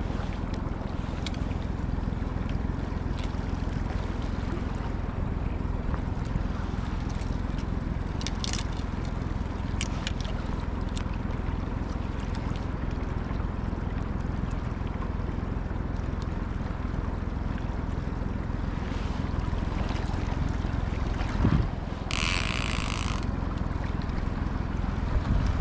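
Steady low hum with wind and water noise aboard a small fishing boat on a river. A few light knocks come through, and a short hiss sounds about 22 seconds in.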